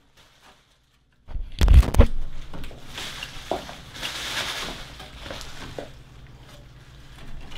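A heavy thump about a second and a half in, then faint rustling and scattered light clicks of small screws being set by hand onto a TV main board on its metal chassis.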